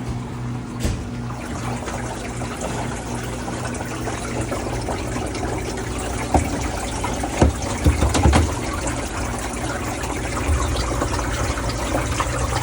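Under-counter ice machine running: water flowing with a steady low hum, and a few knocks between about six and eight seconds in.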